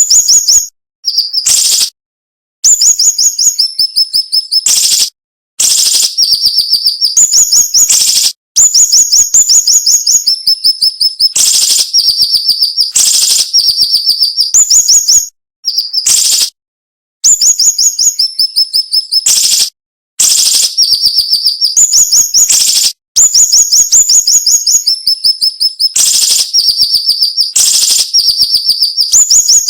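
Siri-siri bird singing sharp, dense phrases of rapidly repeated high chirping notes, each phrase lasting one to three seconds with short breaks between them.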